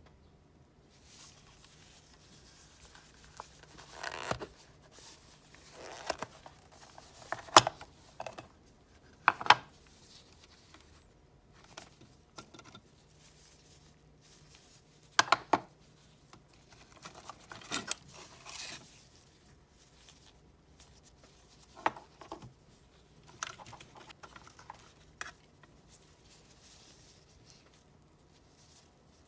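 Irregular handling sounds: separate rustles and scrapes with a few sharp clicks, spaced every second or few seconds and dying away near the end.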